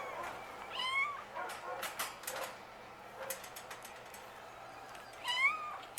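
A cat meowing twice, short rising-and-falling calls about a second in and again near the end, with several sharp clicks or taps in between.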